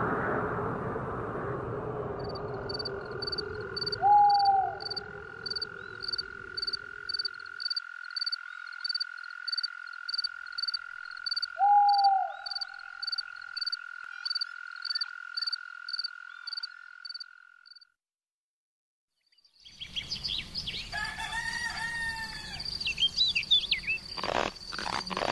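Dusk insect and frog chorus: a cricket-like chirp repeating about twice a second over a steady trill, with two short falling frog croaks, about four and twelve seconds in. It cuts off to a second of silence, then a burst of chirping calls starts.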